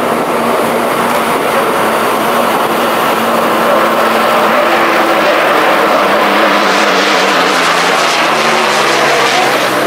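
H1 unlimited hydroplane's gas-turbine engine running loud at speed. It is a steady rush with a faint whine in it, swelling slightly about four seconds in.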